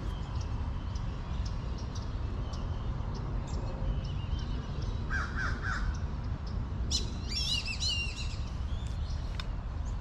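Wild birds calling: a quick run of harsh caw-like calls about five seconds in, then a burst of high, warbling chatter lasting about a second and a half, over a steady low rumble.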